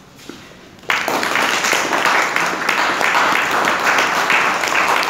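Audience applauding, breaking out suddenly about a second in and holding steady as dense, even clapping.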